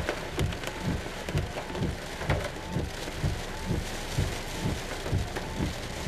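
Heavy wind-driven rain hissing steadily in a severe thunderstorm squall, with a run of low thumps about two a second.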